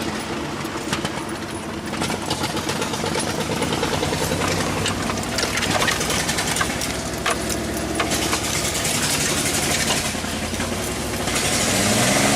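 Rough-running engine of a freshly reassembled Ford Explorer under way, its pitch rising and falling with the throttle, with rattling clicks over it. A rushing hiss builds near the end.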